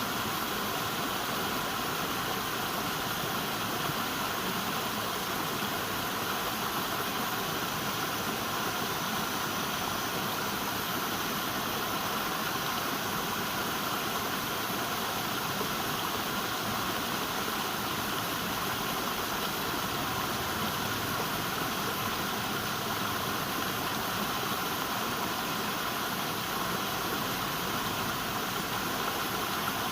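River water flowing, a steady, even rushing that does not change.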